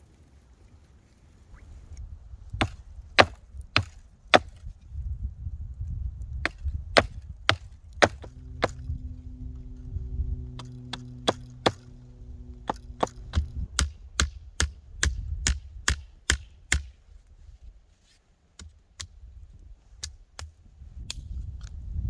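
Axe chopping wood: a long run of sharp, irregularly spaced strikes, a couple each second with short pauses. A low steady hum sounds underneath for a few seconds midway.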